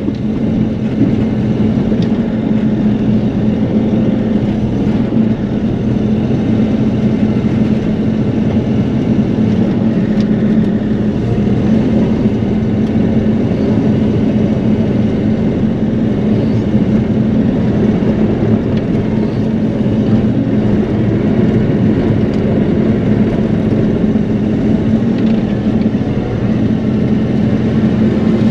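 Bobcat E42 mini excavator's diesel engine running steadily under work, heard from inside the operator's cab.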